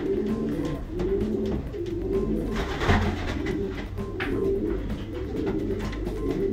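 Domestic racing pigeons cooing in their loft: low, rolling coos repeating about once a second, with a couple of brief sharp sounds about three and four seconds in.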